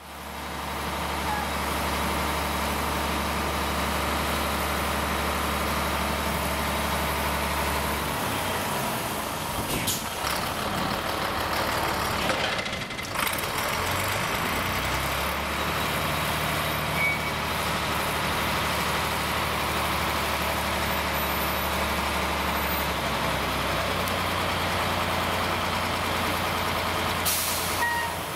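Truck engine running steadily while driving the hydraulics of its tilt deck as the loaded deck is lowered; its low hum shifts in pitch a few times, and a short hiss comes near the end.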